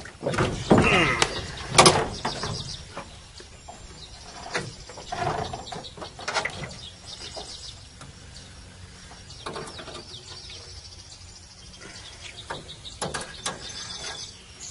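Channel catfish splashing and thrashing as it is pulled out of the water on a trotline, loudest about a second in, followed by scattered knocks and rustles as it is held and unhooked.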